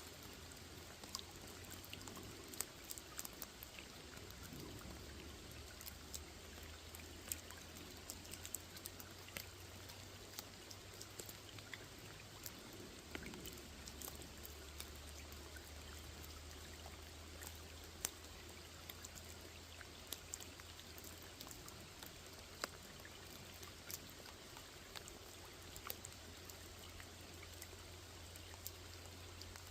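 Rain falling on a small pond: a faint, steady hiss with many separate drops ticking throughout.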